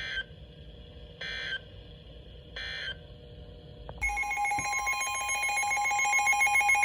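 Three short bursts of Emergency Alert System SAME end-of-message data tones, each a fraction of a second long and just over a second apart, marking the end of a severe thunderstorm warning. About four seconds in, a loud steady two-tone EAS attention signal starts abruptly for the next alert.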